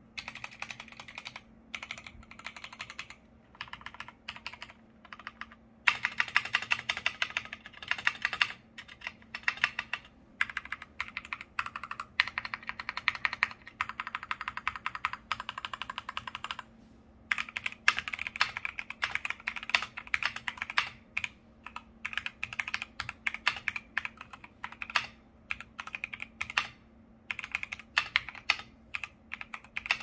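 Custom-built KBD75 V3.1 mechanical keyboard being typed on: a few separate keystrokes at first, then long runs of fast typing from about six seconds in, broken by short pauses. The keys sound creamy.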